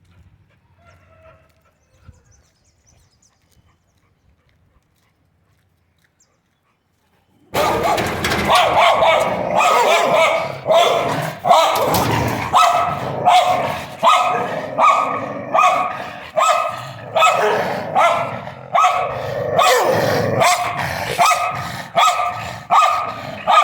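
A dog barking repeatedly at a steady pace, loud, about one to two barks a second. The barking starts abruptly about seven and a half seconds in, after near silence.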